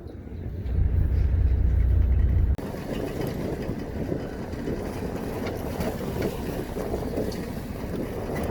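Boat engine and water noise on a fishing boat. A loud low rumble lasts about two seconds and cuts off abruptly, leaving a steady wash of noise.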